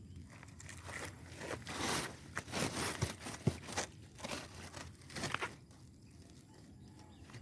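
Dry leaves, twigs and brush crunching and crackling in irregular bursts in dense forest undergrowth, as someone moves through it; the crunching thins out and gets quieter about five and a half seconds in.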